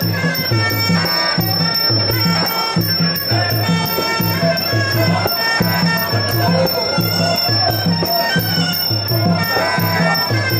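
Muay Thai fight music (sarama): a wavering reed-pipe melody over a steady, repeating drum beat, playing on without a break.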